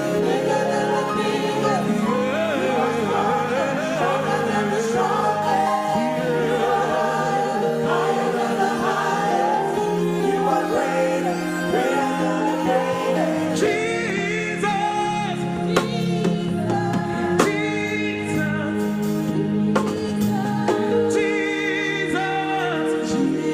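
Gospel praise music: a choir singing with instrumental backing and a steady bass line.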